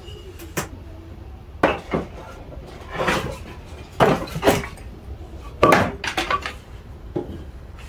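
Dry wooden boards clattering and knocking against each other as they are picked up from a pile of scrap planks: a string of short, irregular knocks, several coming in quick pairs.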